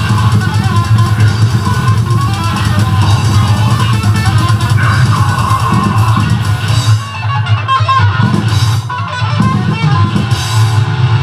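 Heavy metal band playing live: distorted electric guitar leading over a pounding drum kit and bass.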